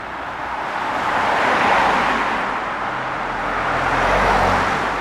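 Two cars passing one after the other on a road, mostly tyre noise. Each swells up and fades away, the first about two seconds in and the second, with more engine hum, about four seconds in.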